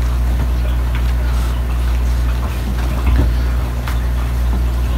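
A steady low machine hum with a few faint clicks.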